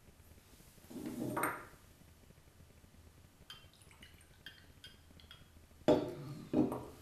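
A drink poured from a glass bottle into a small glass: light clinks and trickling, then two sharp knocks near the end as the bottle is set down on the wooden table.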